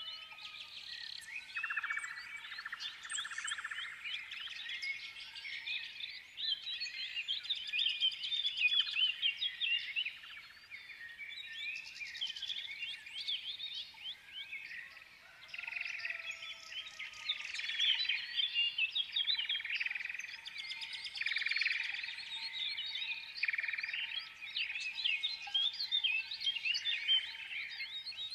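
Many small birds chirping and singing at once: a dense, continuous chorus of quick high chirps and trills.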